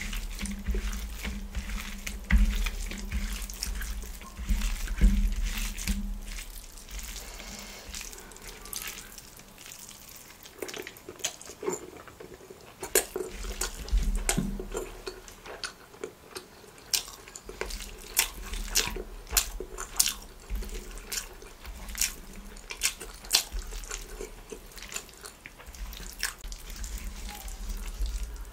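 Fingers squeezing and mixing gravy-soaked parotta on a banana leaf, with chewing: wet squelches and many short sharp wet clicks, coming thicker in the second half.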